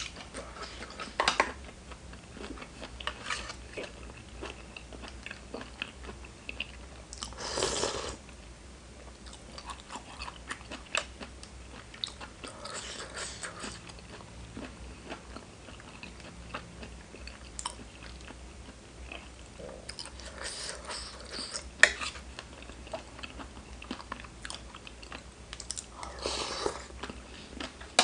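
Close-miked eating: wet chewing, lip-smacking and biting with many small sharp crunches, as spicy seafood papaya salad and raw vegetables are eaten. Two longer, louder noisy bursts stand out, about eight seconds in and near the end.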